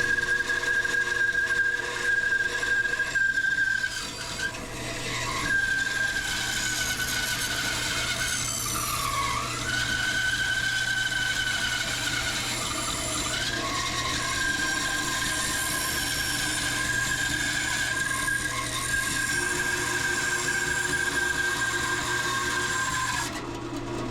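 Delta 28-206 14-inch bandsaw with a Timberwolf blade running and cutting through a thick block of wood: a steady high whine that sags in pitch several times as the blade loads up in the cut, over a low hum. A buzzing runs with it, which turns out to be a loose rail vibrating against the saw's door.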